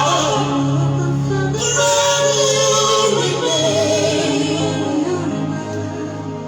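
Worship music: a choir of female and male voices singing over sustained low instrumental notes.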